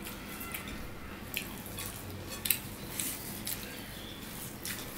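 Soft, wet eating sounds from rice and curry eaten by hand: fingers squishing and mixing rice on the plates, with chewing and lip smacks, heard as scattered short clicks.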